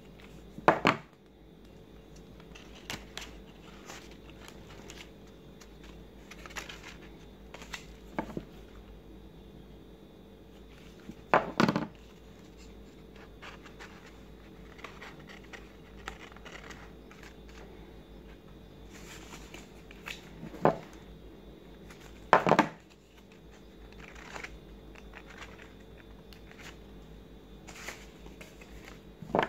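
Stiff paper petals rustling and crinkling as they are handled, glued and pressed into place on a large paper flower, with now and then a short, louder crackle of the paper.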